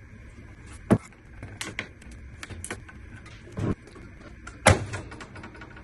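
Knocks and clatter of a car amplifier's metal case and loose bottom plate being handled and set down. There are three louder knocks, about one, three and a half, and four and a half seconds in, the last the loudest, with lighter clicks between.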